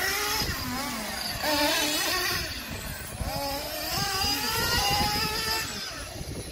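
Small glow-fuel (nitro) engines of radio-controlled cars, a Kyosho Inferno GT2 and a Mugen MTX2, racing around the track, their high buzzing pitch rising and falling as they accelerate and back off.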